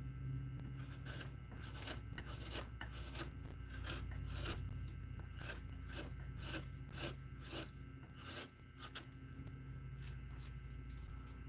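Hand chisel cutting into Spanish cedar: short, crisp slicing strokes about twice a second, with a steady low hum underneath.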